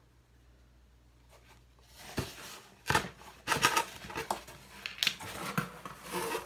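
Cardboard shipping box being handled, with grosgrain ribbon rustling and scraping as it is pulled through slits in the cardboard flaps: a run of short, irregular rustles starting about two seconds in.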